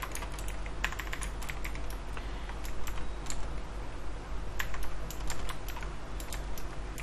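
Typing on a computer keyboard: irregular runs of key clicks with short pauses between them, over a faint steady low hum.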